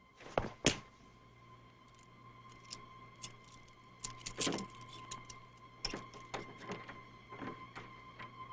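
Foley sound effects for an action sequence, performed live with props: an irregular run of knocks, clicks and rattles, the two loudest hits coming under a second in, over a faint steady high tone.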